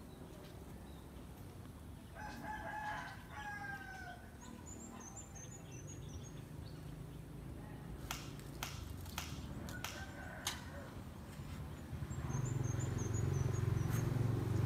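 A rooster crows about two seconds in, and small birds chirp above it. A few sharp clicks come in the middle, and a low rumble grows louder near the end.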